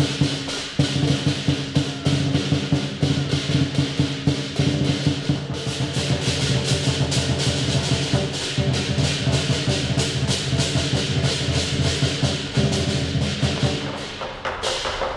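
Lion dance percussion: a big Chinese drum beating a fast, steady rhythm with cymbals clashing on the strokes.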